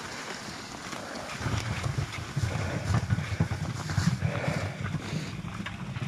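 Wind buffeting the microphone in uneven gusts that pick up about a second and a half in, over scattered steps on the snowy road.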